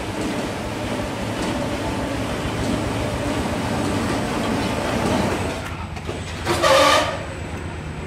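Rotary veneer peeling lathe and other mill machinery running steadily with a low hum. A loud short burst comes near the end.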